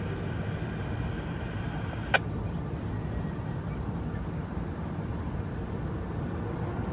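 Steady low outdoor background rumble, with a single sharp click about two seconds in.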